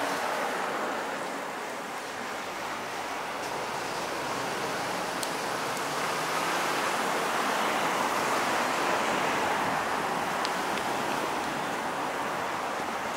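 Street traffic: a steady rush of tyre noise that fades over the first two seconds and swells again around eight to nine seconds in as vehicles pass.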